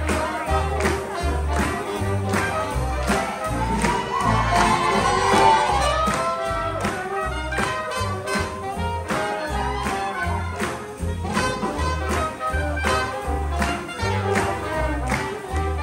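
Live swing band playing an up-tempo tune with a steady drum beat and brass, the horns swelling about four seconds in.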